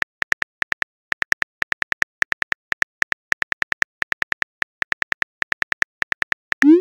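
Phone on-screen keyboard click sounds, a fast, slightly uneven run of short taps at about six a second as a text message is typed. Near the end a short rising swoosh begins, the message-send sound.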